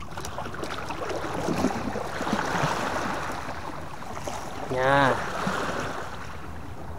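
Sea water washing against the boulders of a rock breakwater, swelling and then easing off. A short voice sounds once about five seconds in.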